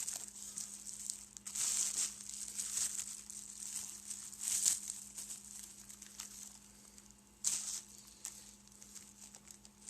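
Plastic packaging crinkling and rustling as it is handled, in several short bursts, over a faint steady low hum.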